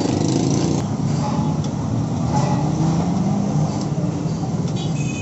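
Deep-frying: khajla dough sizzling in a large wok of hot oil while steel ladles scoop and pour the oil over them, above a steady low rumble.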